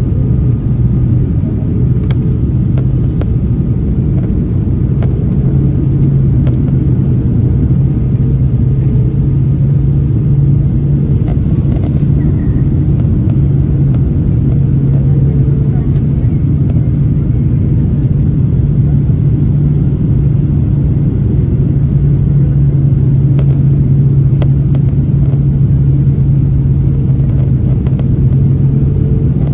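Airliner cabin noise: a steady low rumble of jet engines and airflow with a constant hum, and a few faint ticks.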